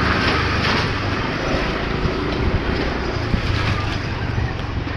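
Steady road traffic noise with wind buffeting the microphone and a low engine hum underneath.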